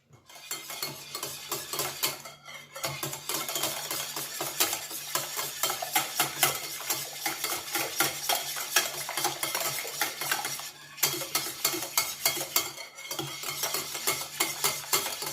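Cake batter of eggs, sugar, yogurt, oil and lemon being beaten by hand in a bowl, the utensil clicking rapidly and steadily against the bowl, with two short pauses.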